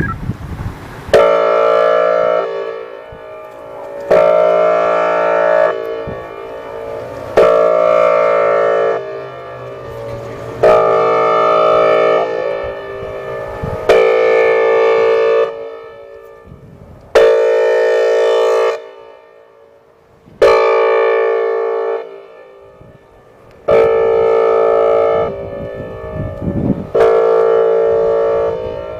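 Whelen 4004 electronic outdoor warning siren sounding its air-horn test signal: loud, steady-pitched horn blasts, each about a second and a half long, repeating about every three seconds, nine in all.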